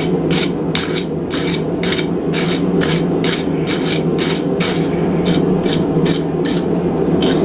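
Wire brush scrubbed back and forth over forged steel, a steady run of scratchy strokes at about two to three a second, over a steady low hum.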